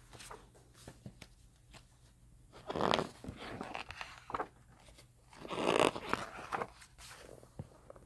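Pages of a book being turned by hand: two louder paper swishes, about three seconds in and again near six seconds, with small rustles and clicks of paper around them.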